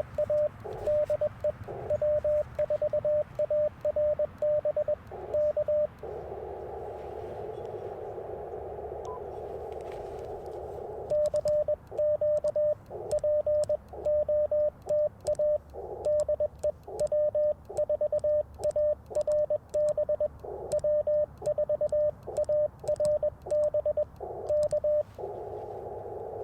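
Morse code sent on an Icom IC-705, heard as its keying sidetone: one steady tone of about 600 Hz keyed in dits and dahs, with faint clicks from the paddle key. About six seconds in, and again near the end, the keying stops. The receiver's narrow-band hiss fills the gap while listening for replies to the call.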